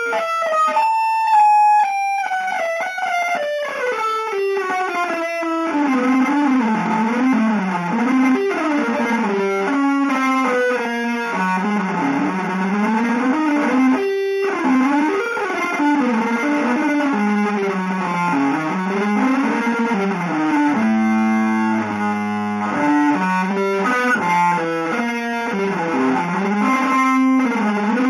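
Electric guitar playing a fast, wandering single-note improvised line in a free-jazz style. About a second in, a long note slides down, and around twenty-one seconds in there are a couple of seconds of a repeated chord.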